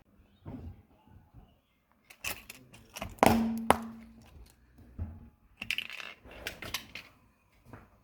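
Objects cracking and crunching under a car tyre: clusters of sharp snaps, with the loudest crack about three seconds in, followed by a brief squeak, and another burst of crackling near the end.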